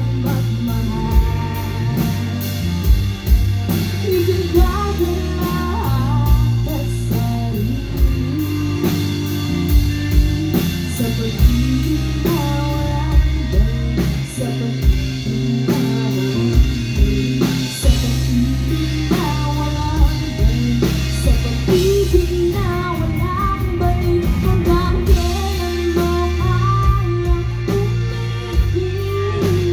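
Live rock band playing a song: a singing voice over electric guitar and a drum kit with a steady beat.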